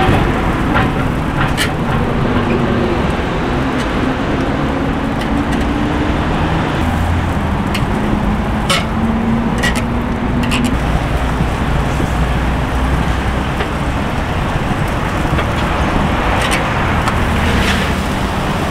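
Steady loud rushing background noise with a low hum, broken by a few light metallic clicks as a metal tool works chicken pieces on a wire barbecue grill rack.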